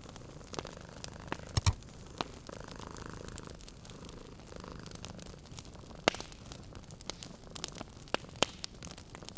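A cat purring steadily under the crackle of a wood fire in a fireplace, with sharp pops now and then, the loudest a double pop about a second and a half in.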